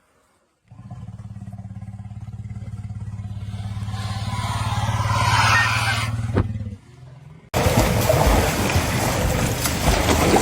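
An engine running with a steady low drone that grows louder over several seconds, then stops. Shortly after, there is an abrupt cut to a loud, dense rushing noise.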